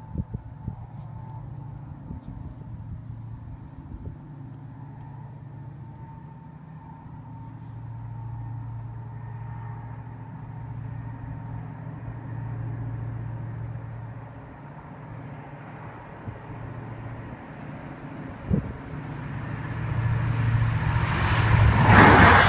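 Low steady rumble of an approaching train that builds over the last few seconds, then a loud rush and rhythmic rattle of wheels on rail as the train passes the level crossing near the end.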